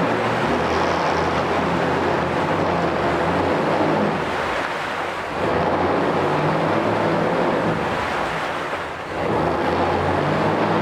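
2016 Mercury 40 hp four-cylinder four-stroke outboard running in forward gear in a water test tank. The level dips twice and then comes back up.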